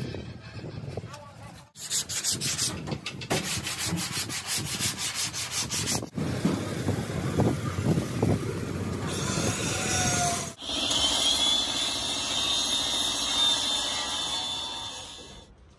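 Sanding paper rubbing on the sheet-metal panels of a UD Nissan truck cab in quick, even back-and-forth strokes, over several short cut-together clips. From about two-thirds of the way through, a paint spray gun hisses steadily as it sprays the cab.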